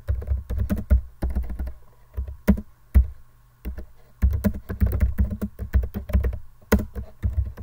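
Computer keyboard typing in quick runs of keystrokes, with a couple of short pauses between runs.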